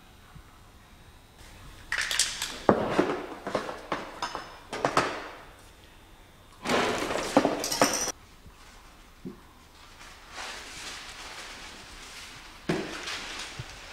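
Handling noises of acrylic painting work: a run of knocks and clinks from paint bottles and tools for a few seconds, then a louder rasping noise lasting about a second and a half, then softer rustling.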